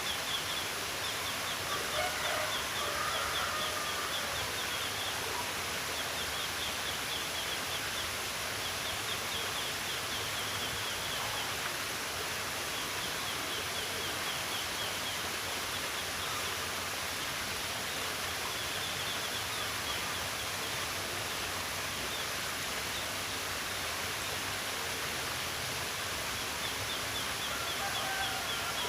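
Outdoor nature ambience: a steady rush like flowing stream water, with high, fast trills repeating every few seconds. A few short calls come near the start and again near the end.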